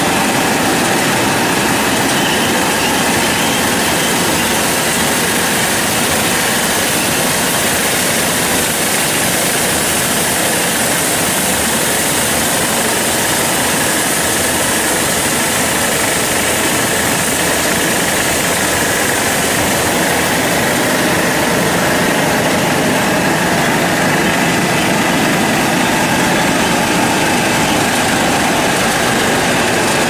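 Automatic brush-type commercial vegetable washing machine running: a steady, loud mechanical noise with a few faint steady whines over it.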